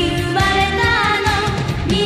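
Female singer with a pop band backing: an anime theme song, sung in Japanese, holding long notes.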